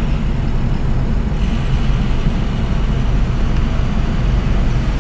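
Steady low engine and road rumble heard from inside a car's cabin while it drives along a city street.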